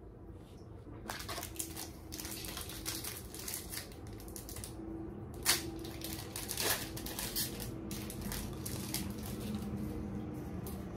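Foil booster-pack wrapper being crinkled and torn open by hand, an irregular crackling with two sharper cracks a little past the middle.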